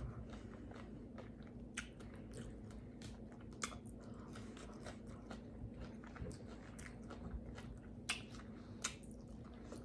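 A person chewing tacos close to the microphone: faint, scattered wet smacks and small crunchy clicks of a mouth eating.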